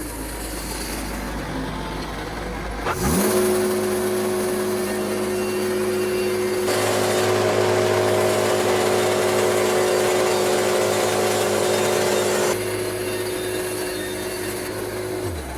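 Wood-Mizer LT70 band sawmill running: its engine rises in pitch about three seconds in and holds steady, then the band blade cuts through a yellow pine log, adding a harsher rushing noise for about six seconds. Near the end the engine drops in pitch again.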